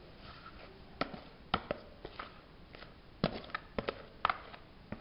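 Wire whisk knocking and scraping against the bowl and metal cake tin as the last of the chocolate cake batter is scraped out: about ten irregular, sharp clicks from about a second in.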